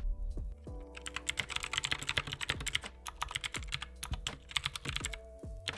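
Fast typing on an RGB-backlit budget mechanical keyboard: a dense run of key clicks starting about a second in, a brief pause, then another burst of keystrokes near the end.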